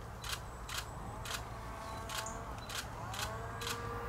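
Camera shutter firing repeatedly, about two clicks a second, as photos are taken of an angler holding up a caught carp.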